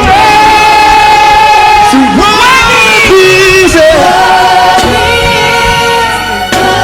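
Live worship song: singing voices holding long notes over a steady band accompaniment, the sung pitch shifting about every second or two.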